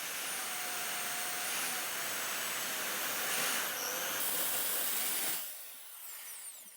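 Electric drill running with a freshly sharpened twist bit cutting into oiled steel square tubing, a steady hissing grind for about five seconds; then the trigger is released and the motor winds down.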